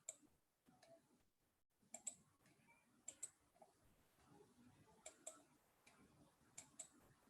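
Faint computer mouse clicks, five quick pairs spread over a few seconds, with near silence between them.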